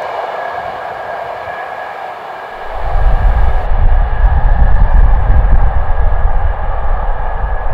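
Steam-hauled passenger train running away along the main line, with a steady rumble and rail noise from the receding carriages and the Peppercorn A1 Pacific locomotive. About three seconds in, a loud, uneven deep rumble comes in suddenly and stays, drowning the train.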